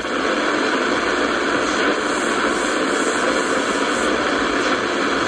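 Shortwave static from the speaker of a Sony ICF-F12S portable radio: a steady rushing hiss, with no station coming through while the set is tuned across the shortwave band.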